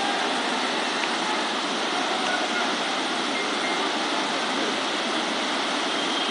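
Steady rushing of a swollen, muddy river in flood.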